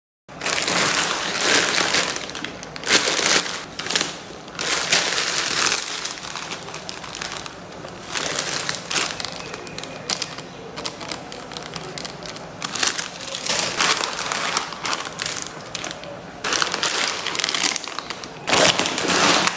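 Plastic grocery packets crinkling and rustling as they are picked up and handled, loud and uneven, coming and going in fits.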